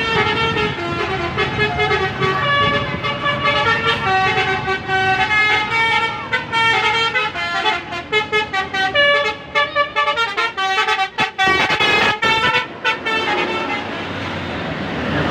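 Basuri telolet horn on a Gumarang Jaya bus, a multi-tone musical air horn, playing a melody of held notes that step from pitch to pitch. About eight seconds in it breaks into a quick run of short staccato toots. Near the end the notes stop, leaving a steady rushing noise.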